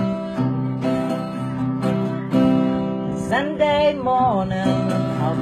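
Acoustic guitar strummed in a steady rhythm, playing the intro of a folk song. About three and a half seconds in, a wordless sung phrase slides up and down in pitch for about a second.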